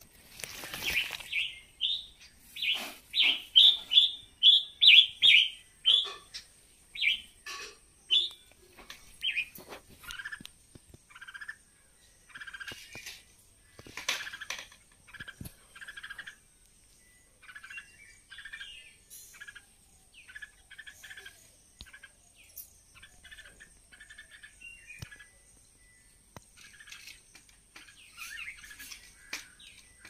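Red-whiskered bulbul calling: a quick run of loud, bright chirps over the first six seconds, then softer, lower notes at irregular intervals.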